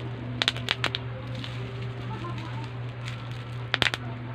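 A few sharp clicks and taps from small objects being handled, in two brief clusters, over a steady low hum.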